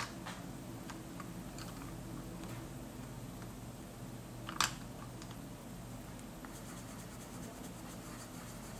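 Coloured pencils clicking against one another as a hand sorts through a row of them, with one sharp click about four and a half seconds in, over a steady low hum. Near the end comes a light, fast scratching of a coloured pencil on paper.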